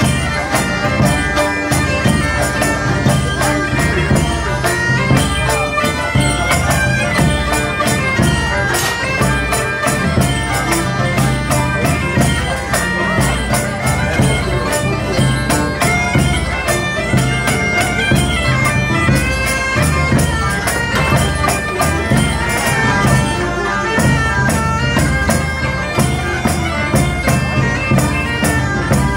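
Bagpipe playing a tune over its steady drone, with two rope-tensioned side drums beating a steady rhythm under it: medieval-style folk music played live.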